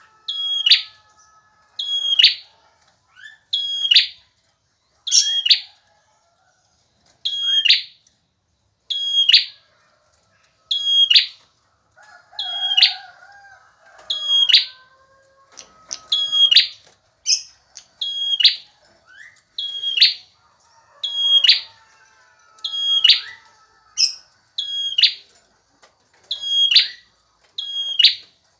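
Male prenjak (prinia) singing, a short, sharp, piercing chirp repeated about once a second, with one brief pause.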